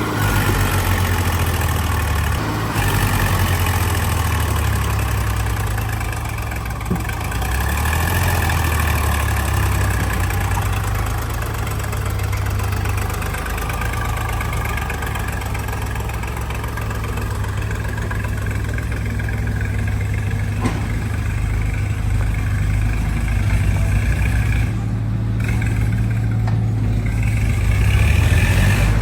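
Diesel engines of a backhoe loader and a farm tractor running at a worksite, the engine note swelling and easing as the machines work, louder near the end.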